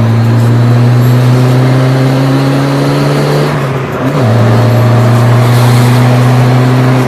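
Car engine pulling under load, a loud steady drone that rises slowly in pitch, wobbles briefly about four seconds in, then holds steady.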